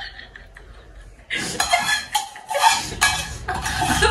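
Metal spoon scraping and clinking against a steel pot and plates as chutney is ladled out. It comes in repeated bursts from about a second in.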